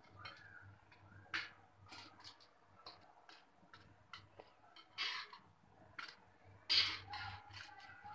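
Metal tongs clicking and tapping against a pan as a fried bread ring is dipped and turned in sugar syrup, with soft wet splashes. The sounds are short and scattered, with a few louder taps, the loudest about seven seconds in.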